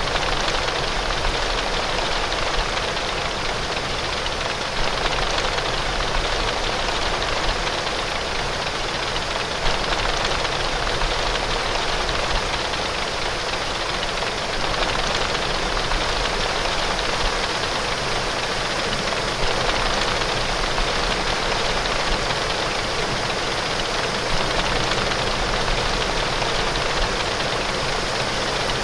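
Heavy rain pouring steadily on window glass, an even hiss with a low rumble underneath.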